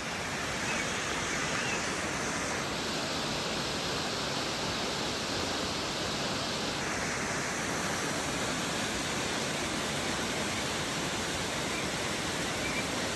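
Waterfall: a steady rush of falling water, its hiss shifting slightly in tone a few seconds in and again about halfway through.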